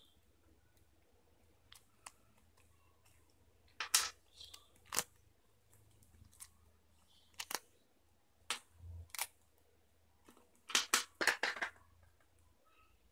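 Small plastic toy pieces and a paper sticker sheet being handled: scattered sharp clicks, with a quick run of several near the end.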